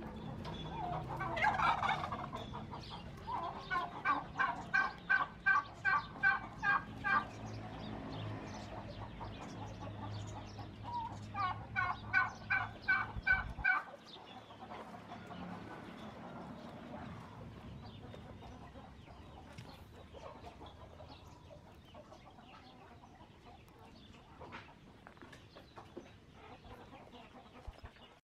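Domestic fowl calling: one loud call about a second in, then two runs of rapid repeated calls, a few a second, each lasting about three seconds with a pause between. Past the middle the sound drops to a quieter yard background with faint ticks.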